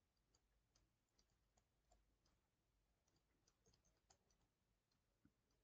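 Near silence, with a scatter of faint, irregular small clicks.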